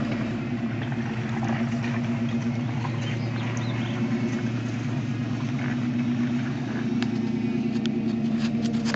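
Chevrolet K5 Blazer's engine running steadily at low speed while it tows a boat trailer, with a few light clicks near the end.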